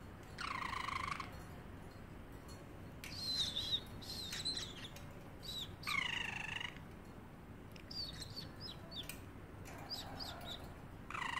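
Pet parrotlet calling in its cage: several drawn-out calls about a second long, one near the start, one about six seconds in and one at the end, with short high chirps and warbles in between.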